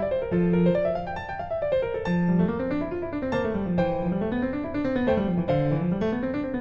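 Piano music: flowing runs of notes, with the bass line rising and falling in repeated waves.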